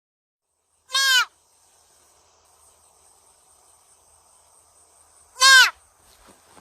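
An animal giving two short, high calls about four and a half seconds apart, each rising and falling in pitch, over a faint steady background.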